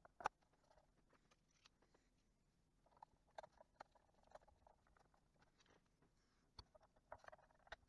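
Faint, scattered clicks and light knocks of a car radio's metal cover being set onto the chassis and handled into place. The sharpest knock comes just after the start, with small clusters of clicks in the middle and near the end.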